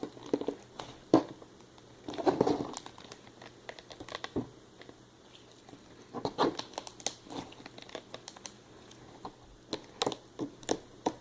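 Homemade glue slime being squeezed and stretched by hand, giving irregular sticky clicks and small crackling pops, in a few louder clusters.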